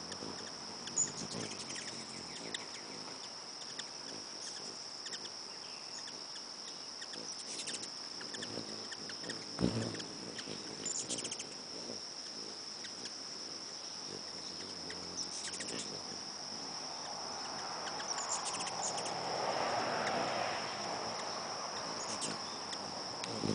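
Hummingbirds at a nectar feeder: a few short, high chirps scattered through, over a steady high-pitched whine, with a broad rushing swell that builds and fades near the end.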